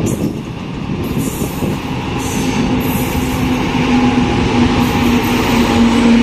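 A WAP-7 electric locomotive hauling an express train approaches at speed and passes close by. The rumble of wheels on rail grows steadily louder, with a steady hum that drops slightly in pitch as the locomotive goes by near the end.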